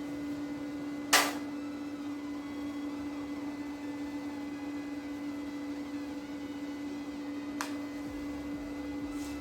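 Prime Weld MIG 180 welder running on flux-core wire: a steady electrical hum with three sharp clicks, about a second in, near the end, and just after it.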